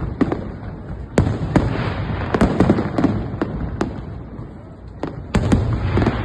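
Fireworks going off: a rapid, irregular series of sharp bangs, each trailed by a rumbling echo, bunched in volleys with a short lull about two-thirds of the way through.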